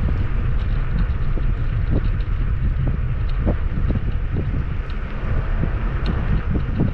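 Wind buffeting the microphone on a moving electric scooter, with frequent short knocks and rattles from the ride.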